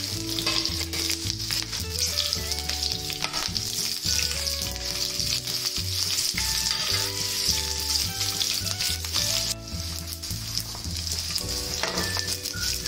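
Hot oil sizzling in a nonstick frying pan as mustard seeds, green chilli pieces and curry leaves fry in it for a tadka (tempering), with many small pops and crackles through the hiss. Background music with a repeating low pattern plays underneath.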